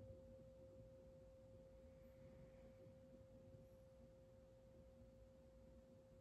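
Near silence with a faint, steady pure tone at a middle pitch, held unchanged without fading.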